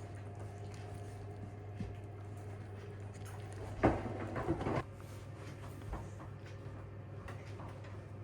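Kitchen work sounds: a few light knocks, then a short clatter of handled utensils or dishes about four seconds in, over a steady low hum.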